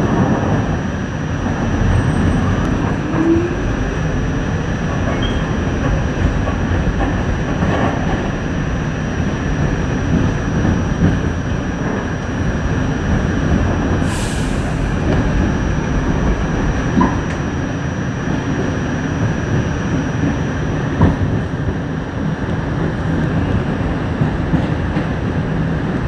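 R46 subway car running along the track, heard from inside the car: a steady rumble of wheels on rail with a few sharp clacks over rail joints.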